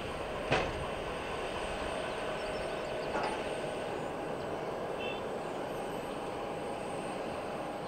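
Boeing 737-800's CFM56 jet engines running steadily: a broad rush with thin, steady whining tones on top. A brief click sounds about half a second in.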